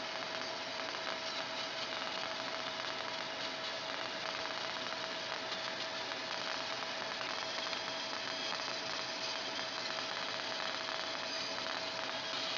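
Fiber laser marking machine running while it engraves an aluminium plate: a steady even hiss with one constant mid-pitched whine.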